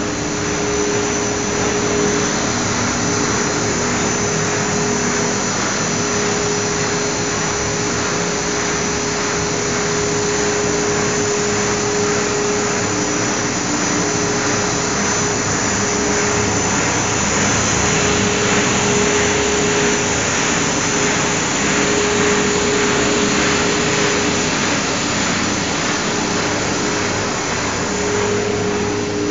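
Centrifugal blower and other machinery of a biomass gasifier plant running: a steady, loud rushing whir with a constant hum tone.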